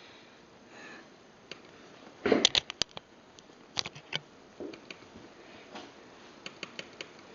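Scattered sharp clicks and light taps from handling a computer, with a quick cluster of them about two and a half seconds in and a few more near the end.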